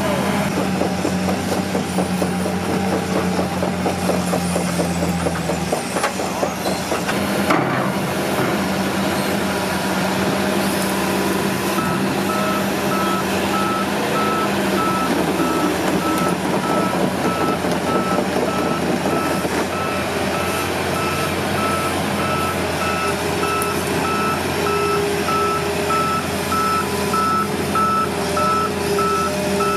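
Hitachi ZX200 excavator's diesel engine running, with its travel alarm beeping in a steady, evenly spaced series from partway through.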